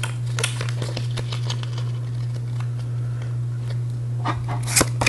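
Pokémon trading cards being handled and sorted: scattered light clicks and rustles, busier near the end, over a steady low hum.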